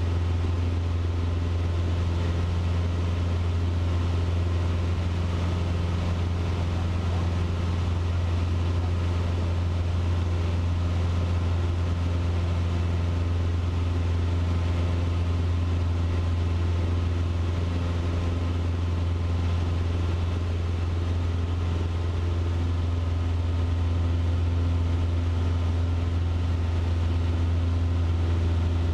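Cessna 150's Continental O-200 four-cylinder engine and propeller running steadily at climb power after a go-around, heard inside the cabin as an even low drone.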